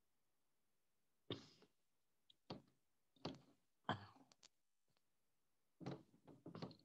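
Cloth duster wiping a whiteboard: about six short, faint rubbing strokes with silence between.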